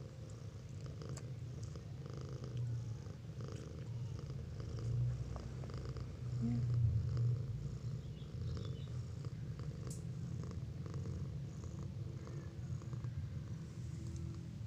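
Domestic cat purring steadily and close up, the low rumble of a mother cat nursing her kittens; it swells a little about halfway through.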